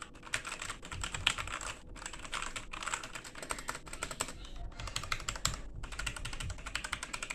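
Rapid typing on a Logitech G413 mechanical keyboard: a fast, uneven run of key clicks with a few short pauses.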